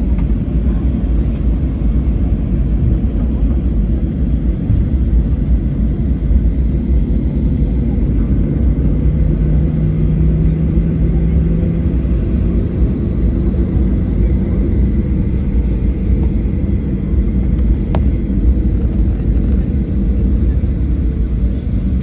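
Boeing 737-800 with its CFM56-7B turbofan engines, heard as a steady low rumble with a faint hum.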